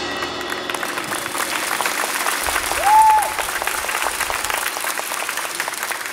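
Audience applauding with dense, steady clapping, and one short high cheer about three seconds in; the clapping fades toward the end.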